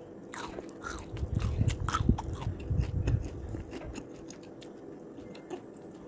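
Someone biting into a crispy cornflour-coated fried chicken wing with several sharp crunches, then chewing it; the chewing dies away about four seconds in.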